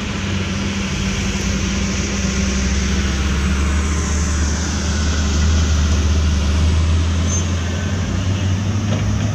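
Diesel engine of a PowerROC D55 crawler drill rig running steadily, its low note shifting near the end.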